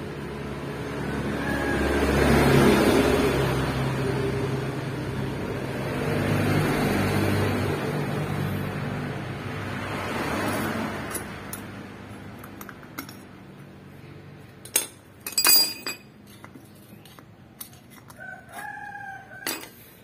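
A rooster crowing several times over a low rumble, then a few sharp metal clicks about fifteen seconds in as a circlip is snapped into the groove that holds the bearing of a scooter's rear drive pulley.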